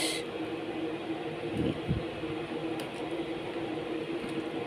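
A steady machine hum with a few fixed low tones, and a faint click or two of a metal ladle against an aluminium pot about three seconds in.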